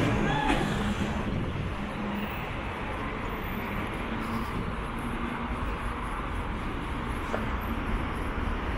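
Road traffic on a busy main road: a steady rush of tyres and engines, louder at the start as a passing vehicle fades away.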